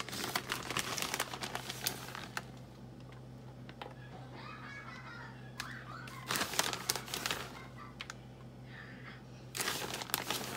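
Plastic bag of shredded mozzarella crinkling as cheese is shaken out and sprinkled by hand. It comes in three crackly spells: one at the start, one about six seconds in, and one near the end, with quieter stretches between.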